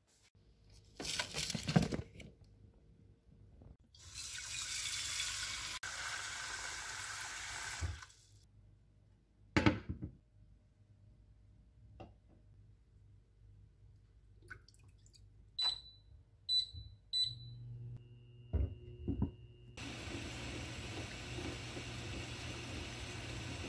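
A kitchen tap runs for about four seconds, filling a saucepan with water, between a few knocks of a pot and utensils. Later an induction cooktop beeps three times and starts up with a low hum. Near the end a steady rushing noise sets in as the water in the lidded pot heats.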